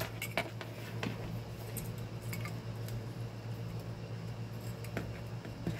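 A few faint clicks and light taps as loose metal and plastic fan parts are handled on a workbench, over a steady low hum.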